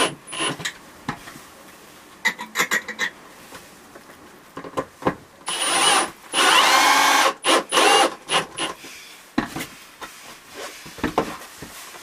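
Irregular bursts of scraping, rubbing and knocking, with a longer scrape of about two seconds near the middle.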